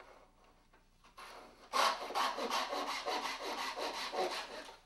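Small Japanese-style pull saw cutting wood by hand, starting about two seconds in with a quick run of short, even strokes that stop shortly before the end.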